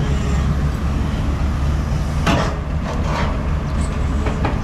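CDM6225 crawler excavator's diesel engine running with a steady low drone as its steel tracks creep onto the low-bed trailer deck, with several sharp metallic clanks about two seconds in and again near the end.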